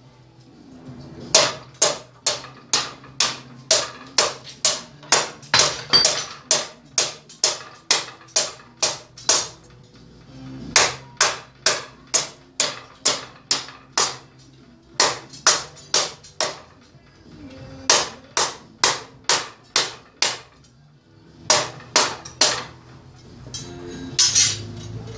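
Hand-forged ring-pommel sword with a 5160 steel blade chopping into a wooden block in an impact test. Sharp cuts land about two to three a second in runs, with short pauses between them.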